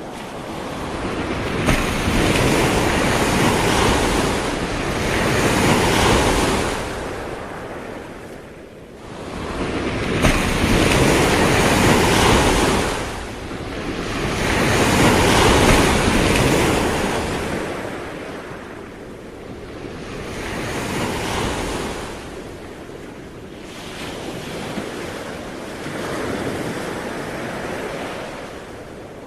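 Ocean waves breaking and washing on the shore, the surf swelling and falling back every few seconds.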